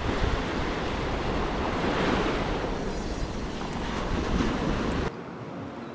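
Small waves washing in over a sandy, rocky shoreline, with wind buffeting the microphone. About five seconds in the sound drops suddenly to a quieter, calmer wash without the wind rumble.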